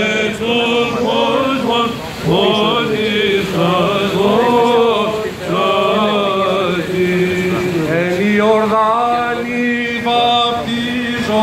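Greek Orthodox Byzantine chant for Theophany, sung by a priest into a microphone. A single ornamented melodic line moves over a steady held low note.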